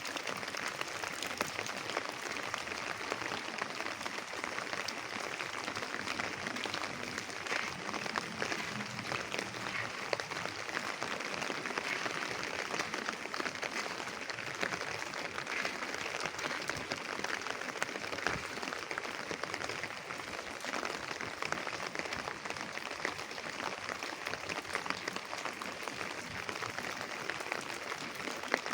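Steady drizzle: a dense, even patter of raindrops.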